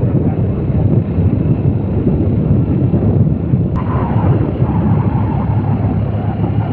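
Heavy, steady wind rumble on the microphone of a moving vehicle, with engine and road noise underneath. A single sharp click a little under four seconds in.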